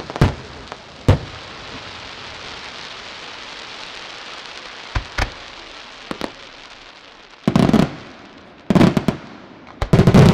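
Aerial firework shells bursting: single sharp bangs in the first half, then three tight clusters of rapid bangs in the last few seconds, with a steady hiss between the bursts.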